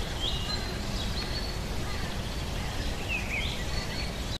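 Woodland ambience: birds chirping over a steady noise, ending abruptly.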